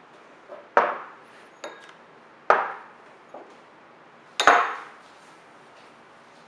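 Small ceramic bowls set down one after another on a wooden tabletop: three sharp clacks roughly two seconds apart, each with a short ring, and a few lighter knocks between them.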